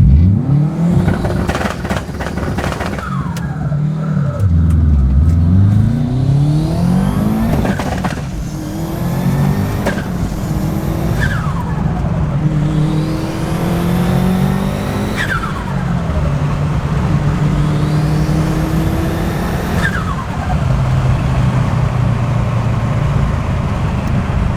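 Turbocharged Subaru Forester's flat-four engine accelerating hard through the gears, its pitch rising in each gear. At each lift-off, about five times, the turbo whistle drops sharply in pitch with a fluttering chatter as the compressor surges.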